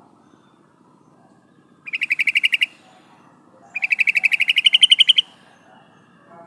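Female yellow-vented bulbul (trucukan) giving her call to males: two rapid chattering rattles, a short one about two seconds in and a longer one that rises slightly in pitch near its end.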